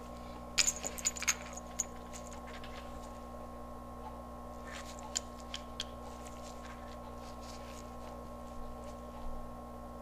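Light metallic clinks and clicks of a small three-arm puller being fitted to the convertible-top latch motor, ready to push the shaft out of the drive gear. A quick cluster comes about half a second in and a few more clicks about five seconds in, over a steady faint hum.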